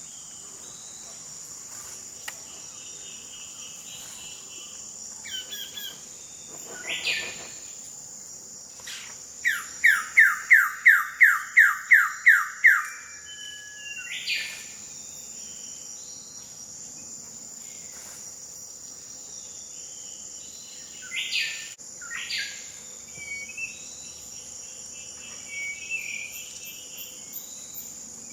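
Rainforest with a steady, high insect drone throughout. About a third of the way in a bird gives a loud series of about eleven evenly spaced down-slurred notes, likely a Wilson's Bird-of-Paradise calling. Scattered short bird calls and chirps sound before and after.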